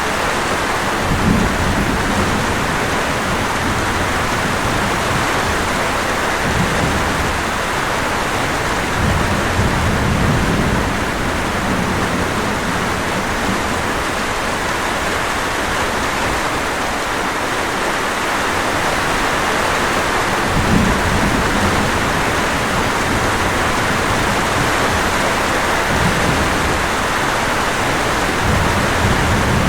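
Steady, heavy rain falling, an even hiss throughout, with a few brief low rumbles swelling underneath it.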